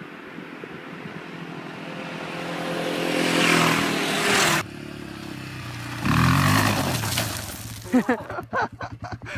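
Honda XLR250R's single-cylinder four-stroke engine revving, rising in pitch for a few seconds before cutting off abruptly, then running loudly again. Near the end comes a quick series of sharp clattering sounds.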